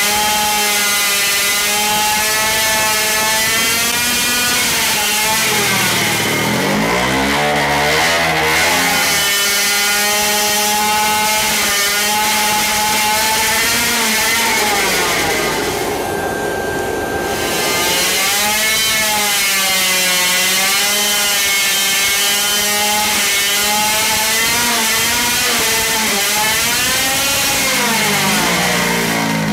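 Supercharged 50cc two-stroke engine running hard on a dyno at about 12,000 to 14,000 rpm, its pitch wavering up and down, with a sharp drop and climb back about six to nine seconds in. It is burning a methanol mix with 30% nitromethane and is still getting too much fuel at full throttle.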